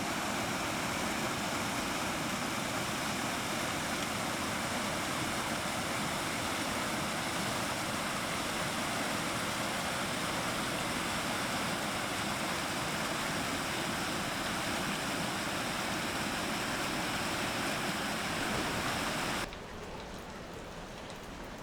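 Waterfall and creek water rushing in a steady, even hiss. About nineteen seconds in it drops suddenly to a quieter, duller hiss.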